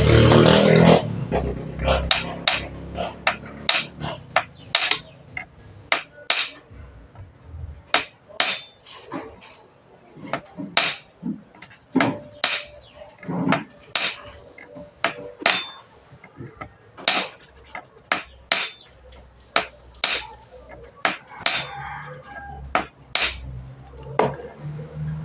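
Irregular sharp taps and clinks from hand-tool work on a washing machine, about one or two a second, with a louder rush of noise in the first second.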